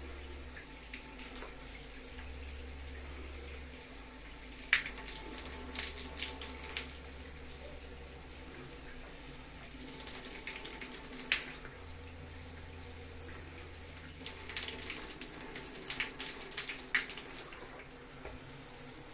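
Water spray from a Hydra electronic electric shower head running steadily, a continuous hiss of falling water. Sharp ticks and splats come in three short clusters: about five seconds in, near the middle, and again late on.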